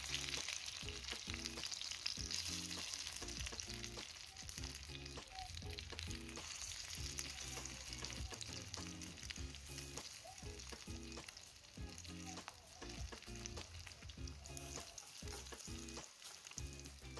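Breaded chicken nuggets frying in shallow hot oil in a metal pan, a steady sizzle. Now and then a fork clicks and scrapes against the pan as the nuggets are turned.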